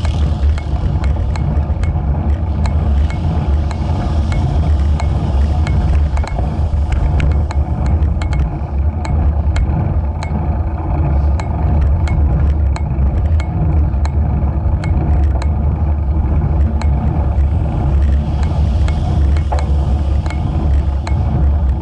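Steady, heavy low rumble of wind and riding vibration on a bicycle-mounted camera's microphone, with frequent light clicks scattered through it.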